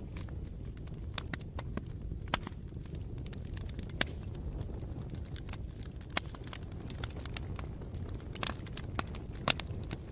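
Campfire burning steadily, with a low rumble of flames and irregular crackles, and a few sharper pops from the burning wood.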